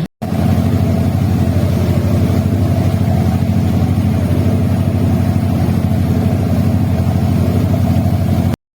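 Boat engine running steadily at constant speed, starting just after a brief cut and stopping abruptly near the end.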